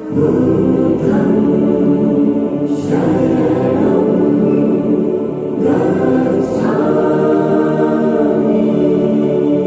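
Choir singing long held notes over background music, swelling in sharply at the start, with new sung phrases entering every few seconds.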